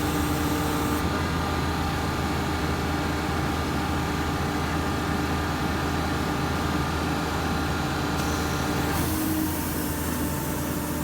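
The 2010 Ford F-550's diesel engine runs steadily with the truck-mounted air compressor running. The drone changes tone and drops slightly about nine seconds in.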